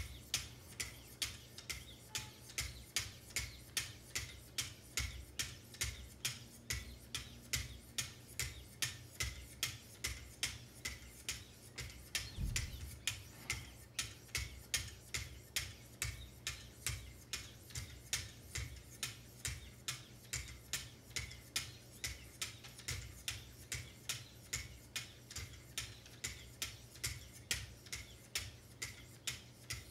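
Wicked Edge 1500-grit sharpening stones stroked along both sides of a clamped Benchmade knife blade: an even rhythm of short scraping strokes, about two a second, with one low thump about 12 seconds in.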